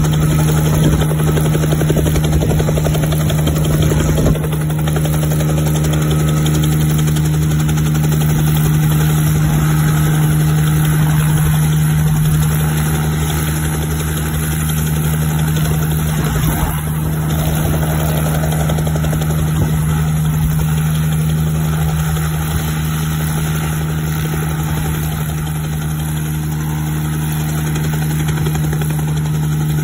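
Bell 47G-3B-2 helicopter in a low hover, its piston engine and two-blade main rotor running with one steady, even drone.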